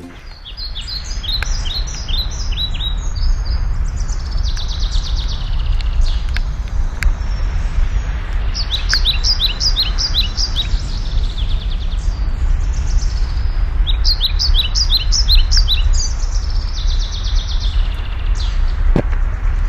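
Wild songbirds calling, with three runs of quick descending chirps and softer chatter between them, over a steady low rumble.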